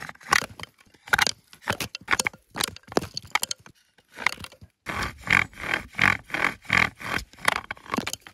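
Bow drill being worked: the wooden spindle grinds and squeaks in the fireboard with each stroke of the bow, about two to three strokes a second. The strokes break off briefly about four seconds in, then start again louder.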